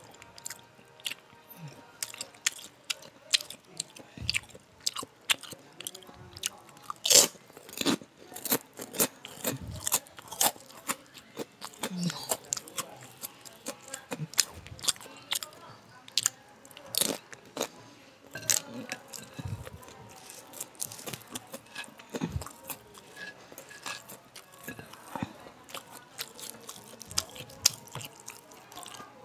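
Close-up eating sounds: chewing and crunching of food eaten by hand, with many sharp, irregular mouth clicks and smacks.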